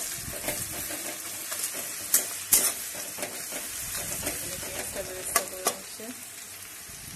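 Sliced onions frying in mustard oil in a metal kadai with a steady sizzle, cooking down to crisp berista. A metal spatula stirs and scrapes them, with a few sharp clinks against the pan.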